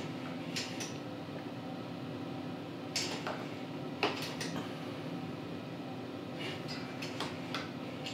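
Scattered light clicks and small knocks, in a few clusters, over a steady low hum, as a snowblower engine is eased round slowly by its recoil pull starter with the spark plug out.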